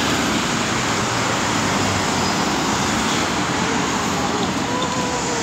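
Steady road traffic noise of cars at a street intersection, with a faint steady tone coming in during the second half.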